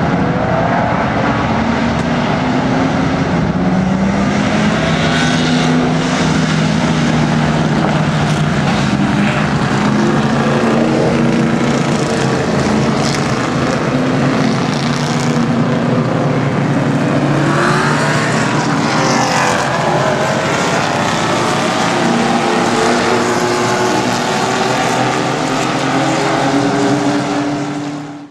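A pack of vintage race cars on warm-up laps, several engines running at once and passing close by, their pitch rising and falling as the cars go past. The sound fades out right at the end.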